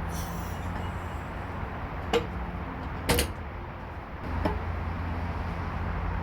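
A bare engine being lowered on a jack: three sharp metal clanks about two, three and four and a half seconds in, over a steady low hum.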